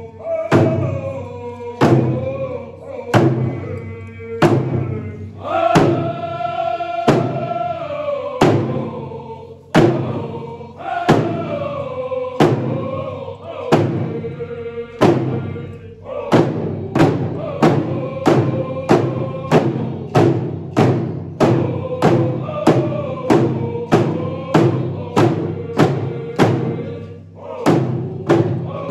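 A group of voices singing a song together in unison over steady hand-drum beats. The beat quickens about halfway through, to roughly two strikes a second.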